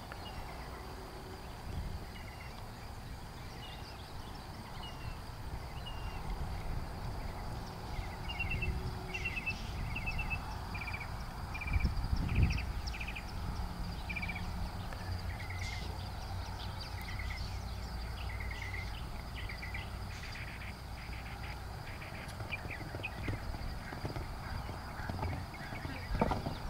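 Soft hoofbeats of a ridden horse on arena sand over a steady low rumble, with a couple of louder thuds, one near the end as the horse goes over a crossrail jump. Short high chirps repeat through the middle stretch.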